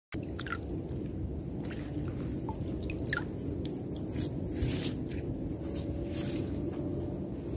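Water dripping and wet squishing over a steady low rush of water, with a few brief splashy hisses.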